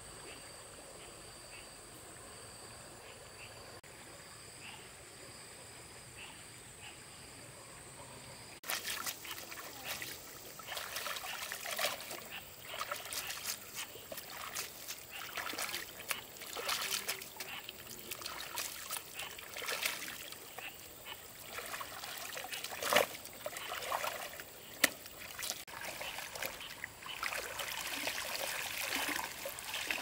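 Water splashing and trickling in irregular bursts, starting about nine seconds in after a quiet stretch with a faint steady high whine. Two sharper, louder impacts stand out a few seconds before the end.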